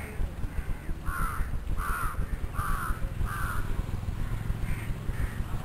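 A crow cawing four times in an even series, about one caw every three-quarters of a second, over a low steady background rumble.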